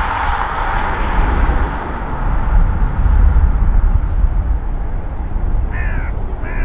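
Dash 8 Q400 turboprop engines and propellers running as the airliner rolls along the runway, a steady hum that fades over the first two seconds, over a constant low rumble. Two short chirps sound near the end.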